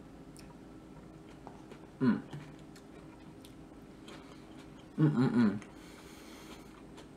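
A person chewing grapes, with faint wet clicks of the mouth. Two short vocal sounds break in, one about two seconds in and a louder one about five seconds in.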